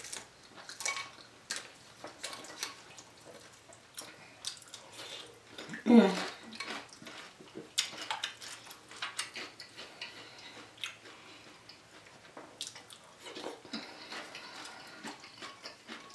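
A spoon clinking and scraping in a glass bowl of broth and noodles, with many scattered small clicks and light liquid sounds as it dips and stirs. A brief vocal sound with a falling pitch comes about six seconds in.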